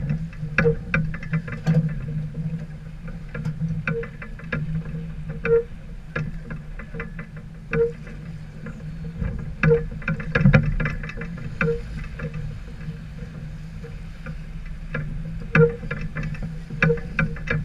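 Islander 36 sailboat under way: a steady low drone with water noise and irregular clunks and knocks, roughly one every second or two.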